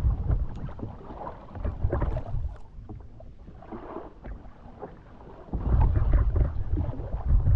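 Wind gusting on the microphone over water lapping and slapping against a kayak's hull. The gusts come at the start, about two seconds in, and most strongly from about five and a half seconds on.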